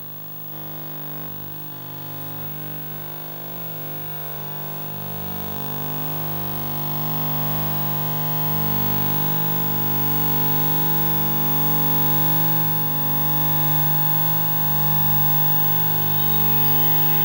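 Electronic noise drone made with analogue equipment: a dense stack of steady tones over hiss, swelling louder over the first half and then holding steady.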